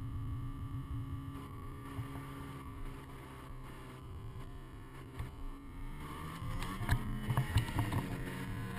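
Ski-Doo mountain snowmobile's two-stroke engine running steadily under the rider, then revving up about six seconds in as the sled pushes into deep powder. Snow spray and knocks against the hood and windshield grow louder near the end.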